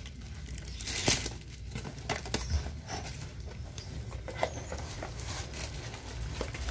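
Cardboard shipping box being opened by hand: packing tape tearing and cardboard flaps rustling and scraping as they are pulled open, with a few short sharp clicks.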